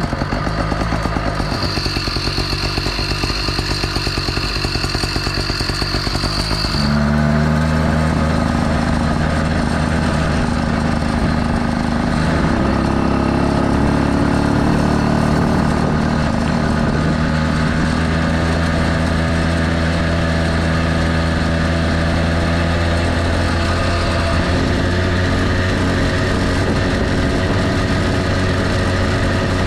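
YD-100-type two-stroke motorized bicycle engine, freshly started and idling, with a high steady whine over it for several seconds. About seven seconds in the engine picks up to a louder, higher-speed run and keeps running steadily, rising a little in pitch now and then.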